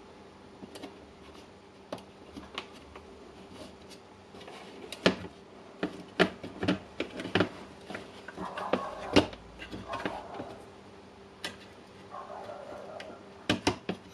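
Irregular sharp clicks and knocks of plastic parts and a circuit board being handled and worked loose from a Milwaukee M12-18C battery charger's housing. There is a quick run of clicks in the middle and another near the end, with brief rustling in between.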